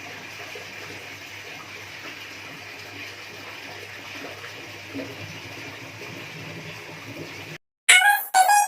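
Steady, even rushing noise like running water. It cuts off about seven and a half seconds in, and after a brief silence music starts near the end.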